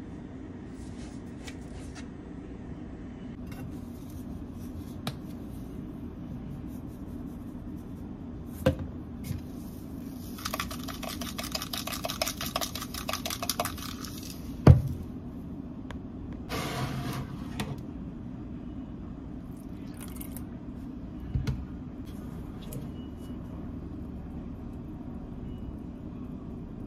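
Making coleslaw dressing by hand in a ceramic bowl: spoon and container clicks, then a few seconds of rapid even ticking from a pepper mill being turned over the mayonnaise, a sharp knock as something is set down, and a short pour, over a steady low hum.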